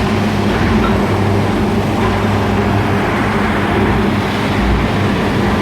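Ladle furnace's electric arcs running: a loud, steady, rough noise with a low electrical hum.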